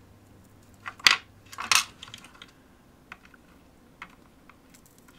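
Desoldering work with a soldering iron and copper solder braid on a fluxed circuit board: two loud, short, sharp crackles about a second in and soon after, then a few faint clicks.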